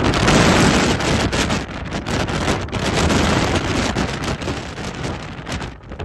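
Gale-force wind buffeting the microphone in heavy gusts, a dense rushing noise that eases near the end.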